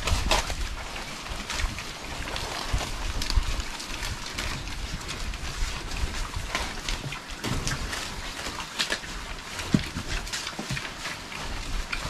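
A group of young pigs feeding on a pile of fresh green leaves: irregular crunching and chomping with the leaves rustling.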